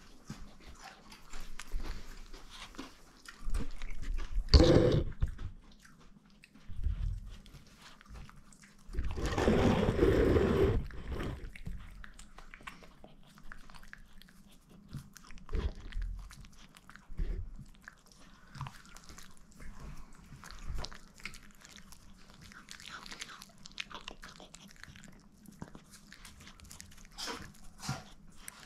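Chihuahua chewing and crunching on a piece of chicken in irregular bites, with two louder stretches of noise about four seconds and nine seconds in.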